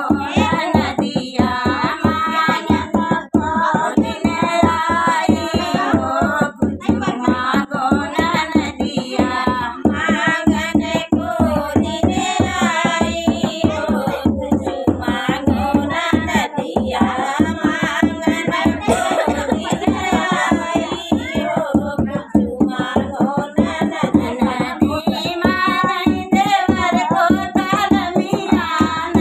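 Women singing an Awadhi folk song (uthan geet) together, to a dholak hand drum played in a steady, quick rhythm with both hands.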